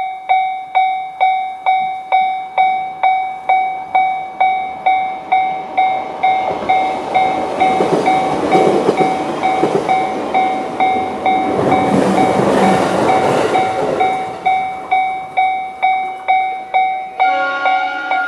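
Japanese level-crossing alarm ringing its electronic bell (the JR standard tone) at about two strikes a second, while an electric train runs over the crossing for several seconds in the middle, its rumble coming in two swells. Near the end the bell stops and a brief tone of several pitches sounds, dropping in pitch.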